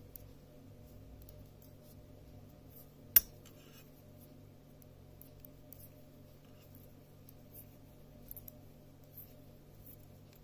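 Knitting needles clicking faintly as stitches are worked, with one sharp click about three seconds in, over a steady low hum.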